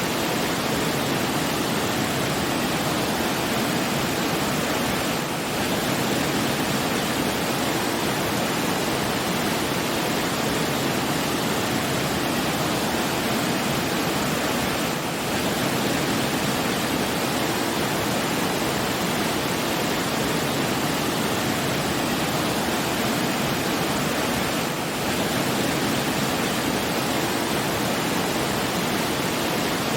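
Steady, even rushing of falling water, like a waterfall, with a slight dip in level about every ten seconds.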